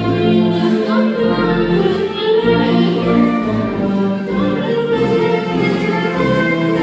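Orchestral music with a choir singing, steady and loud throughout.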